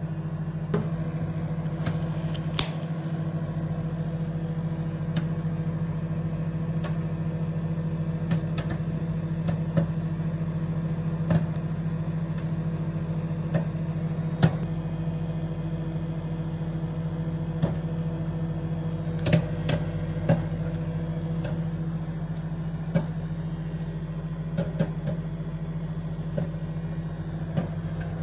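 Microwave oven running, a steady hum, with a few short sharp clicks scattered through it.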